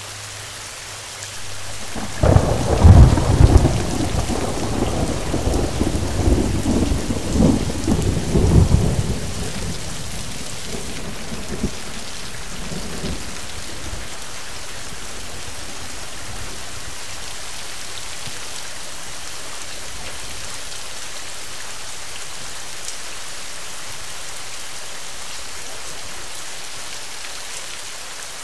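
Rain falling steadily, with a clap of thunder about two seconds in that crackles and rolls for several seconds before dying away; the rain carries on evenly after it and eases off slightly near the end.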